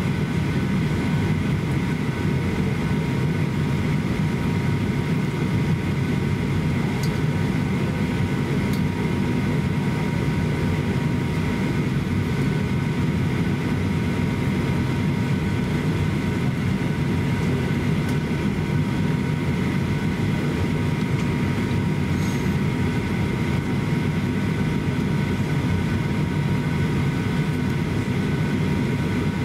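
Steady cabin noise inside a Boeing 737-800 during pushback: a constant low rumble with a thin, steady high whine over it.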